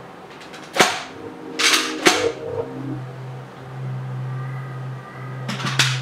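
Sharp plastic clicks and snaps from a Dyson V8 Slim Fluffy's clear bin mechanism being worked over a bucket as the dust is emptied and the bin is shut. There are three loud snaps, about a second in, about two seconds in and near the end, with a short rustle of debris between the first two.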